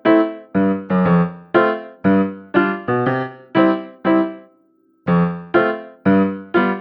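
Background piano music: a keyboard striking chords about twice a second, each note fading out, with a short pause about two-thirds of the way in before the chords resume.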